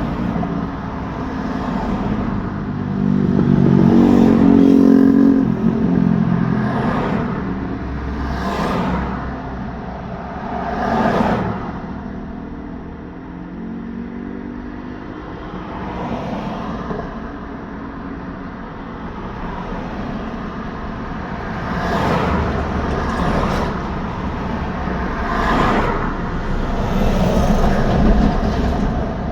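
Road traffic: cars and other vehicles passing one after another, each swelling up and fading away. The loudest pass is a few seconds in, with a low engine note. There is a quieter lull in the middle, then several more passes near the end.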